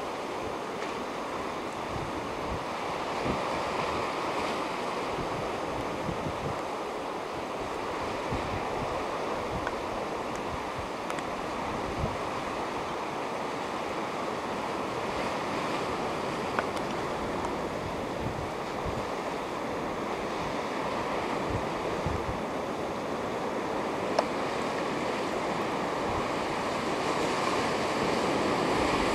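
Sea surf washing steadily against rocks, with wind buffeting the microphone in short low gusts; a little louder near the end.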